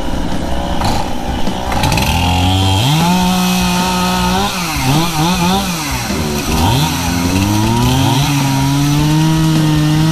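Chainsaw running at high revs, its pitch dipping and recovering several times in the middle, then held steady.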